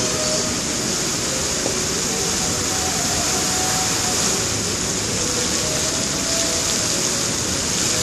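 Steady rushing hiss of many fountain water jets spraying up and splashing back onto the river's surface.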